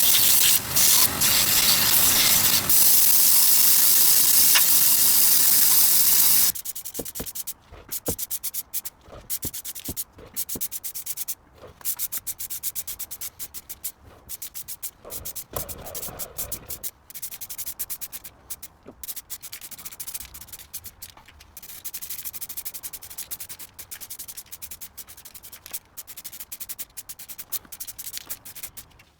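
A power tool runs steadily on the vise's cast-iron casting for about six seconds, then stops abruptly. After that comes a long run of quick, irregular rubbing and scraping strokes, hand abrasive work cleaning up the metal surfaces.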